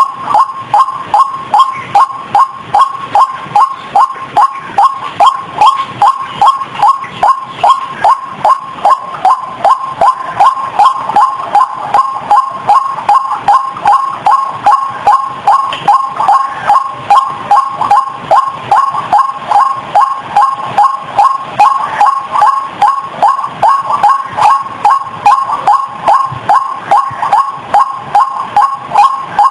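White-breasted waterhen (ruak-ruak) calling, a loud, steady run of repeated two-pitched notes at about two a second without a break: the lure call used to draw in waterhens.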